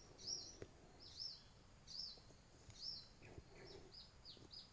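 A bird calling faintly, repeating a high arching chirp about once a second, then breaking into shorter, quicker notes near the end.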